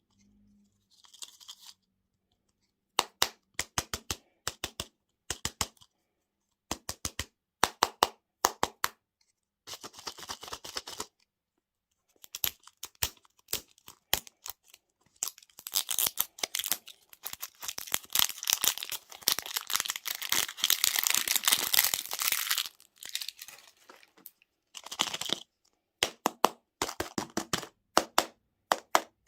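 Food packaging being handled up close: plastic wrappers tearing and crinkling in long rustling stretches, with runs of sharp clicks and cracks in between.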